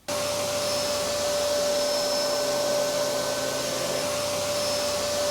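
Hoover Hurricane upright vacuum cleaner switched on, its motor coming up to speed at once and running steadily: a constant tone over rushing air.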